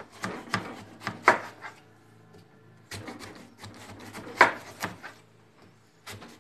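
Kitchen knife slicing down through a watermelon half, giving crisp cracks and crunches as the blade splits the rind and flesh. There are two runs of strokes, one in the first second or two and another from about three to five seconds in.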